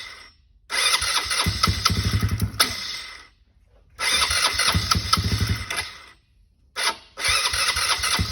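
An Outlaw's engine being cranked by its electric starter in repeated tries of about two seconds each, plus one short blip, each try stopping without the engine firing: it won't start.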